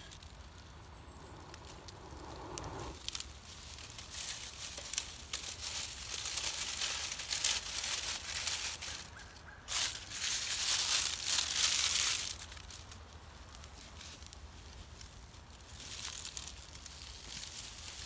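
Dry leaf and punk-wood tinder rustling and crackling in a small perforated metal stove as a smouldering ember is blown up into flame. Long hissing breaths come in the middle, the loudest stretch, with more rustling of dry leaves near the end.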